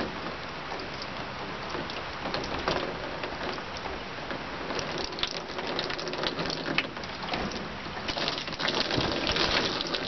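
Water being poured from a 5-gallon bucket into a funnel and long hose, overflowing and spattering in many small drops onto the pickup's bed liner, growing a little louder near the end.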